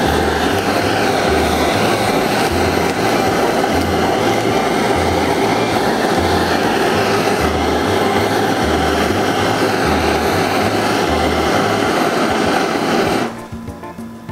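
Kitchen blowtorch flame running with a loud, steady hiss while melting grated mozzarella on fried chicken; it shuts off suddenly near the end.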